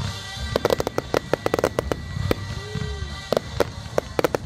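Fireworks going off in quick, irregular succession: many sharp bangs and pops from several shells and comets at once over a low rumble, with music playing underneath.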